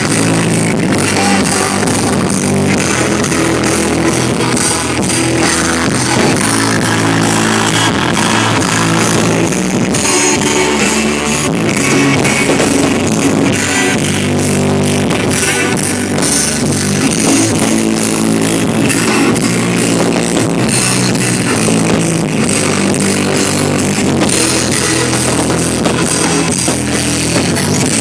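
Loud rock music with electric guitar and drums, steady throughout.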